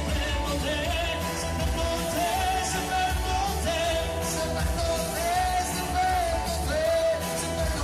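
A live band and singer playing a pop-rock song through amplified speakers: a sung melody over a heavy bass line.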